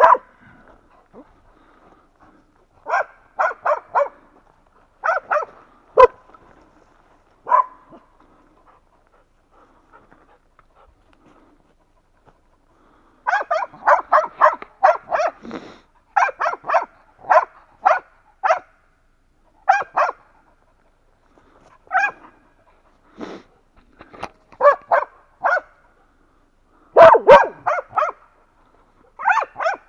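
West Siberian laikas barking at a bear lying on the ground, in short bouts of several barks: scattered at first, then dense, rapid barking from about 13 s on, with a pause of a few seconds before it.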